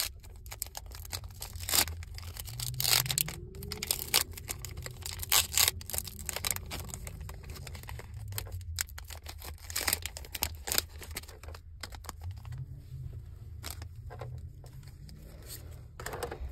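Foil Pokémon card booster pack being torn open by hand, the wrapper crackling and crinkling in irregular bursts.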